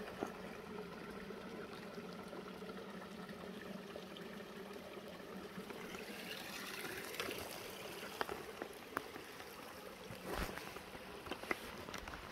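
Steady trickling of running water, with a few sharp snaps and a brief rustle from footsteps on twig-strewn forest floor in the second half.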